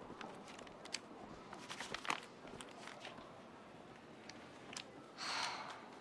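Crumpled paper slips crinkling and a leather wallet being handled, with scattered soft clicks and ticks, busiest about two seconds in. A short, louder rush of noise comes about five seconds in.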